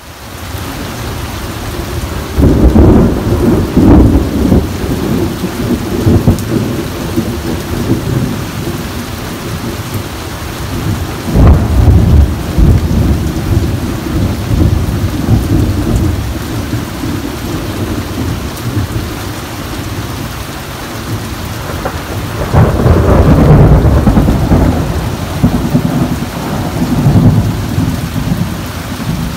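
Heavy rain falling steadily with thunder rolling over it several times: long low rumbles about three seconds in, a sharper crack turning into a rumble around twelve seconds in, and a long rumble from about twenty-two to twenty-eight seconds in.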